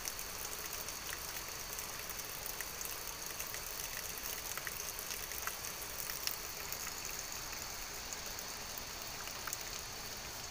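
Thin stream of water pouring from a spout and splashing steadily onto the ground among the leaves, a soft even patter with a few faint ticks.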